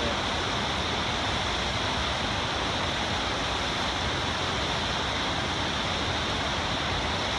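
Water pouring over a low concrete dam, making a steady, even rushing noise.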